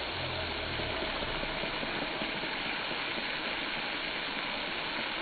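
A steady rushing noise with no rhythm or breaks.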